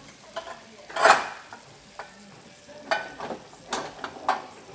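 Metal spatula stirring and scraping curly noodles in a black pan, in several short scrapes, the loudest about a second in.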